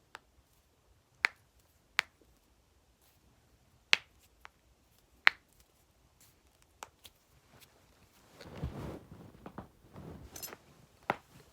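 Joints in the back and neck cracking: a series of sharp, separate pops, four of them loud, spaced a second or two apart. Later comes a rustling and shuffling of movement with a few more faint pops.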